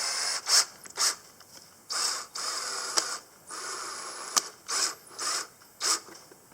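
Cordless drill driving screws straight into a plastic PTO shield without a pilot hole: three short runs of about a second each, with a high whine, and several sharp clicks in between.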